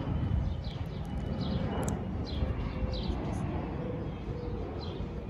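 Ginger cat crunching dry kibble close to the microphone, an irregular low crackle of chewing. In the background a bird repeats short falling chirps about once a second.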